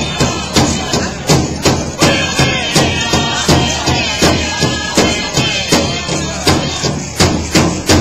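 Powwow drum group playing a dance song: a big drum struck in a steady, even beat, about two to three strokes a second, with voices singing over it.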